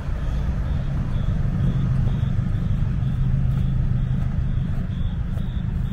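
Road traffic: a motor vehicle's low engine rumble swells through the middle and eases off, over steady traffic noise.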